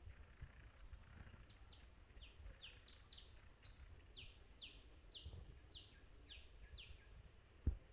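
A bird calling a series of short, falling whistled notes, about two or three a second, over a faint low rumble, with one low thump near the end.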